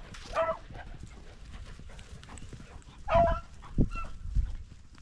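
Hunting dog barking twice, short sharp barks about half a second in and about three seconds in, with a couple of low thumps just after the second bark.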